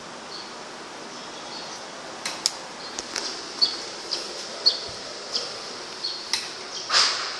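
Panasonic ceiling exhaust fan running with a steady hiss. From about two seconds in, irregular short high-pitched clicks come roughly twice a second, and a louder scraping burst comes near the end.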